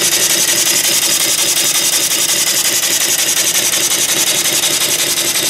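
Homemade vertical steam engine (3-inch bore, 4-inch stroke) running steadily under steam at about 50 psi, its exhaust hissing in a rapid, even beat.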